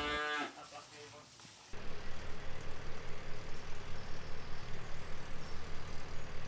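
A Guernsey cow's moo ends about half a second in. After a short hush, steady milking-parlour machinery runs with a low hum and a fast, regular pulse.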